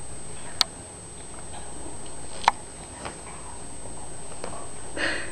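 A bulldog puppy moving about on a fleece blanket in its pen: two sharp clicks about two seconds apart, then a short rustle near the end, over a steady hiss.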